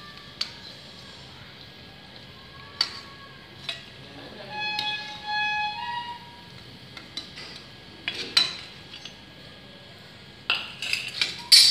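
A steel slotted spoon clinks and scrapes against a steel kadai and a steel plate while fried bread pakoras are lifted out of the oil. The knocks are scattered, with the loudest cluster of clinks near the end. About midway, a couple of seconds of held, ringing tones sound.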